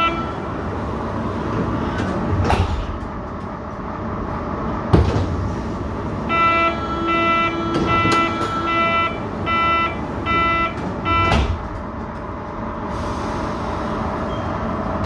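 Berlin U-Bahn HK-series train running through a tunnel: a steady rumble of wheels and rails with a few sharp knocks. From about halfway in, an odd multi-pitched tone from the traction motor switches on and off in short pulses for about five seconds, then stops.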